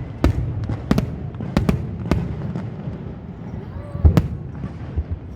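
Aerial fireworks bursting: a run of sharp bangs at uneven intervals, with a close double bang about four seconds in that is the loudest.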